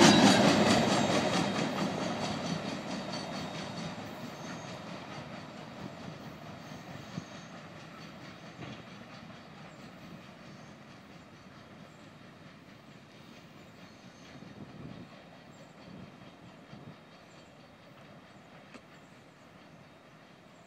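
Tail end of a freight work train passing: the cars' steel wheels clack over rail joints and the cars rumble, the sound fading steadily as the train rolls away until only a faint distant rumble is left.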